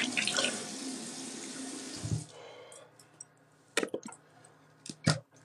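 Sink tap running water, shut off about two seconds in, followed by a few brief sharp sounds.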